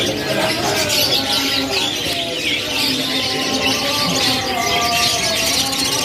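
A crowded cage of young domestic canaries chirping and twittering all at once: a dense, unbroken chorus of overlapping high calls and short trills.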